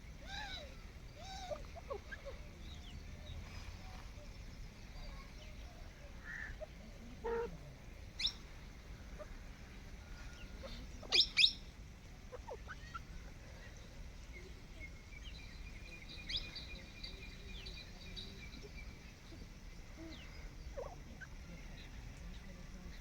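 Teetar (francolin) calling: short, scattered calls, the loudest a pair about eleven seconds in, over a low, steady hum.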